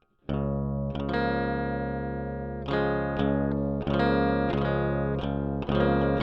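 Music on electric guitar with distortion: notes plucked and left ringing, starting suddenly just after the beginning.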